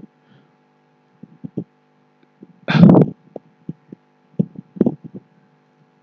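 Scattered computer mouse clicks and soft knocks over a steady electrical hum, with one loud half-second rush of noise about three seconds in.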